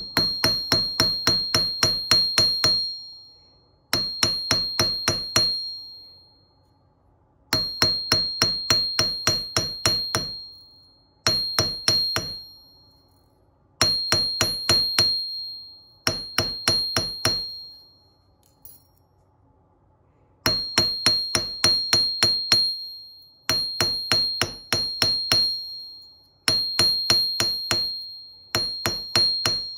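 A metal hammer taps a copper wire ring on a steel anvil in quick runs of about four strikes a second. Each run lasts a few seconds, with short pauses between, and every blow makes the anvil ring with a high, bright tone. The tapping work-hardens the copper.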